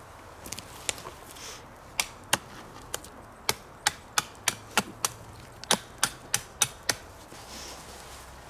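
A hand-held blade chopping at a thin dead sapling: a run of about fifteen sharp woody chops, two to three a second, that stop about a second and a half before the end.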